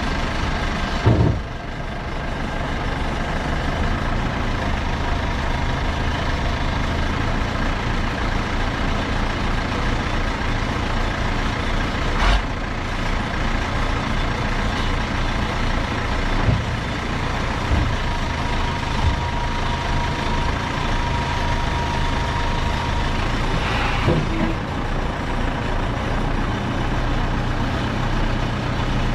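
A heavy diesel engine running steadily under work, with a few clunks of metal on metal and a brief steady whine partway through.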